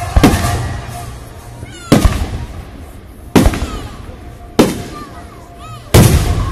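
Aerial firework shells bursting overhead: five sharp booms roughly one to one and a half seconds apart, each fading away after the bang. The last boom is the heaviest.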